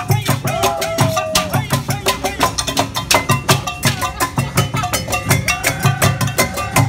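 Live percussion played on kitchenware: plastic barrels, pots and metal cups struck in a fast, steady beat, with metal ringing over the drumming.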